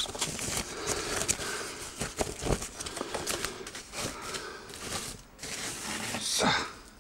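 White plastic wrapping crinkling and rustling as a cardboard product box is pulled out of it by hand, with irregular crackles and small clicks and a louder rustle near the end.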